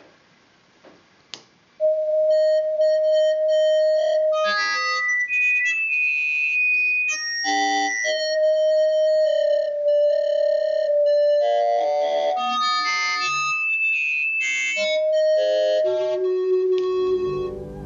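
Two faint clicks, then a light-controlled theremin built from a Raspberry Pi, a PicoBoard and Scratch sounds through a small speaker. It plays a string of steady electronic notes, each held for up to a couple of seconds, that jump abruptly from pitch to pitch as the flashlight beam on the PicoBoard's light sensor changes.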